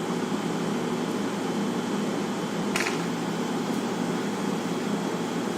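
Steady whirring hum of room ventilation, like an air-conditioning unit, with a single short click about three seconds in.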